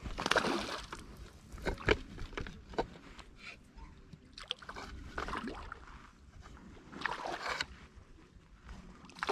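Water sloshing and swishing in a run of irregular strokes a couple of seconds apart, with a sharp knock about two seconds in.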